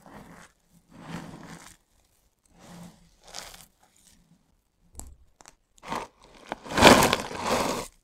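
Hands crunching and rubbing handfuls of dry, crumbly soap shavings in short bursts about a second apart, with a few sharp snaps. Near the end a louder, longer clattering crunch as a tub of soap curls and pieces is tipped onto the pile.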